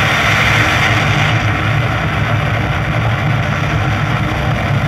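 Rocket engines at launch from a film soundtrack, played through a KEF Q250c center-channel speaker on its own: a loud, steady, dense roar with a heavy low rumble.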